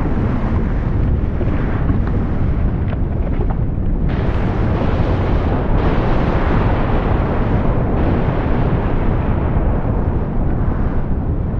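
Volcanic eruption: a loud, continuous deep rumble with rushing noise over it, which turns brighter and harsher abruptly about four seconds in.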